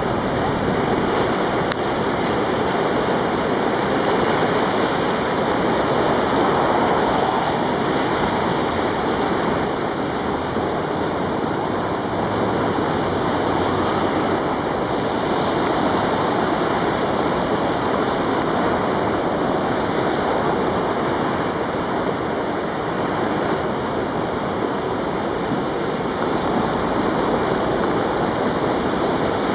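Creek in flood rushing in fast, churning whitewater: a loud, steady rush of water.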